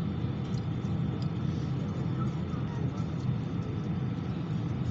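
Steady low rumble inside the cabin of an Airbus A319 airliner before takeoff, an even, unchanging drone with a few faint light ticks.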